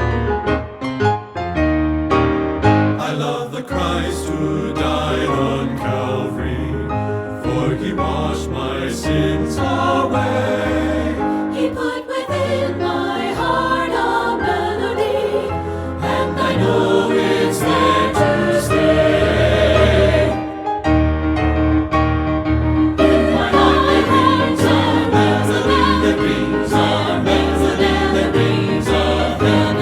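Choral gospel worship music: a choir singing over instrumental accompaniment with a steady bass line.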